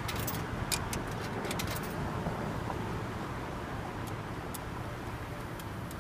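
Short metallic clicks from a coin payphone as coins are fed into the slot and its keypad buttons are pressed, over a steady low outdoor hum.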